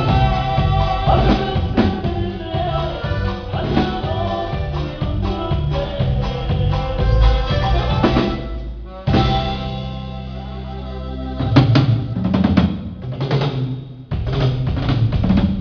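A live band with a drum kit playing through a sound check. For about eight seconds the full band plays. After that the music thins to held bass notes and scattered drum hits.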